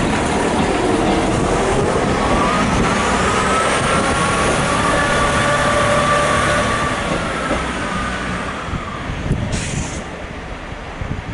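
Northern diesel multiple unit pulling away, its engine and transmission whine gliding up and down in pitch as it accelerates. The sound fades over the last few seconds as the train draws away.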